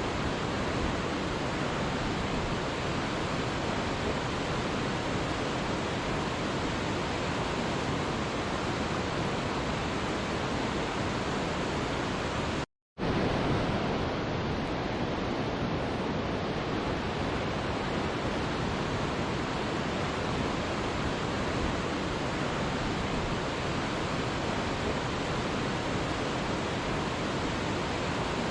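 Waterfall, a steady, even rush of falling water. It cuts out completely for a split second about thirteen seconds in, then carries on unchanged.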